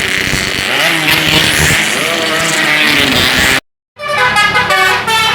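Noisy roadside hubbub with traffic and raised voices, then, after an abrupt cut near the end, an Indonesian bus's telolet horn playing a quick multi-tone tune.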